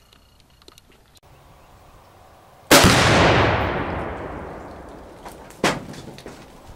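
An AR-15 shot setting off a pound of Tannerite packed in a pumpkin: one sudden explosion about three seconds in, its rumble dying away over about two seconds. A second, shorter crack follows about three seconds later.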